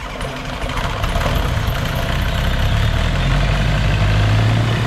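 Gyrocopter's engine running at idle on the ground, turning the rear pusher propeller. It swells over the first second or so, then holds steady with a low hum.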